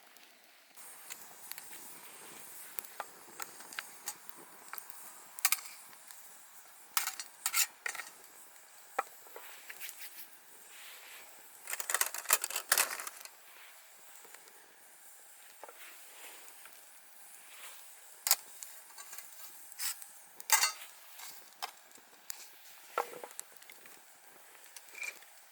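Scattered clinks and knocks of metal camp cookware and utensils being handled, with a cluster of quick clatters about halfway through, over a faint steady hiss.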